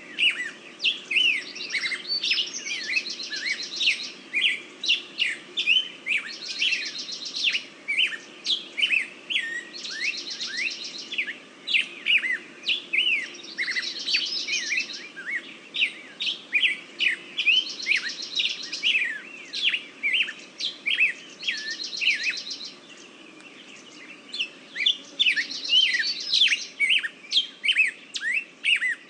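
Several songbirds chirping and singing together in a busy chorus of quick, high chirps. One buzzy trill recurs every three to four seconds, and there is a short lull a little over three-quarters of the way through.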